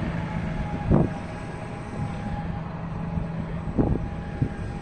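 John Deere 6215R tractor's six-cylinder diesel running steadily while turning on the headland with its six-furrow reversible plough lifted. Wind buffets the microphone twice, about a second in and near the end.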